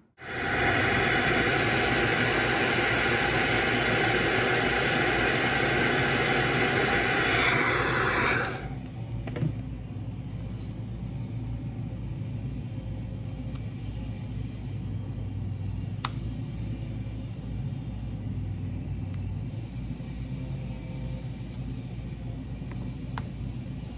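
Hair dryer running on high to heat a RunCam 5 camera so its lens glass can be pushed out. It is loud and close for about the first eight and a half seconds, then quieter and steadier with a low hum. A single sharp click comes about 16 seconds in.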